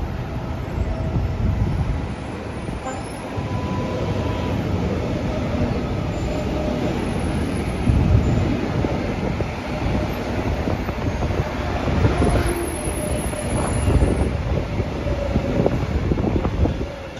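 Red Israel Railways double-deck passenger train running along the line and passing underneath, with a steady rumble of wheels on rails. It grows louder as the train passes below, about halfway through.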